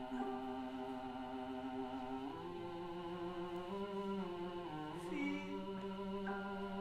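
Slow choral music: several voices holding long notes together in sustained chords that shift to new notes every second or two.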